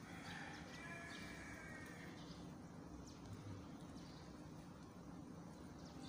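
Faint outdoor ambience after rain: a steady low hum with scattered short high chirps from distant birds, and a faint held pitched tone in the first two seconds.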